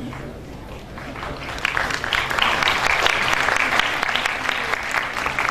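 Audience applauding, swelling about a second and a half in and thinning out near the end.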